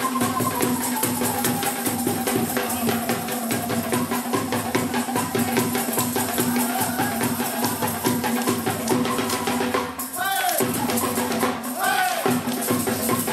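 Punjabi folk music: dhol drumming, with sapp wooden clappers and chimta jingles keeping a fast, even beat over a steady drone and a wavering melody. Two high cries fall in pitch near the end.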